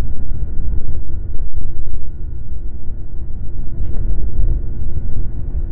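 Snowmobile running along a groomed trail: a loud, uneven low rumble with wind buffeting the microphone and the engine droning faintly underneath.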